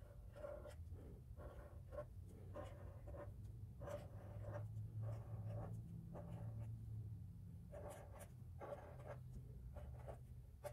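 Felt-tip marker drawing short strokes on paper, faint, in a run of quick strokes with short pauses between them.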